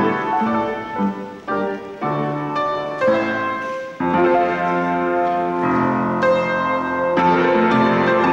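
Scottish country dance music led by piano, a steady run of notes that thins briefly and then comes back fuller, with a stronger bass, about halfway through.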